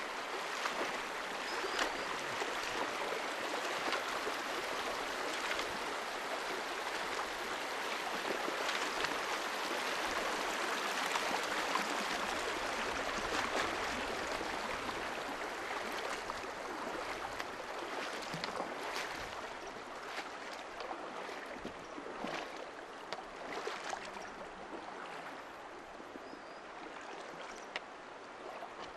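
Shallow rocky stream rushing and splashing over stones, a steady rush that eases a little in the second half.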